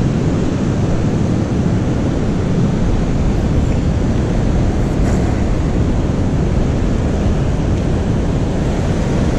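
Wind buffeting the microphone over the wash of surf: a steady, loud rumble of noise with no distinct events.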